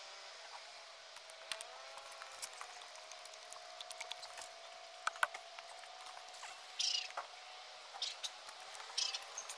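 Faint pouring of diesel motor oil from a plastic jug into a plastic funnel, with scattered small clicks and a few short glugging crackles in the second half, over a faint steady hum.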